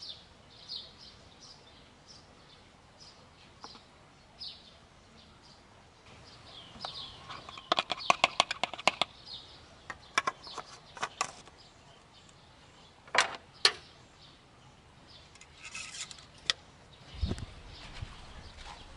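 Birds chirp faintly for the first few seconds. Then comes a fast run of sharp plastic clicks and taps, followed by a few more clicks, as the oil funnel is removed and the engine's oil filler cap is screwed back on. Near the end the car's hood closes with a low thud.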